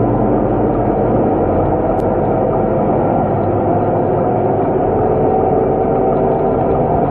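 Scania K230UB bus's diesel engine and ZF automatic gearbox running steadily as the bus drives along, heard from inside the passenger saloon. There is a brief click about two seconds in.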